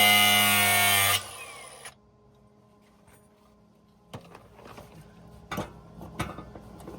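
Electric grinder running at full speed, then switched off about a second in and spinning down with a falling whine. After a short near-silent pause come scattered metallic clicks and knocks of tools being handled.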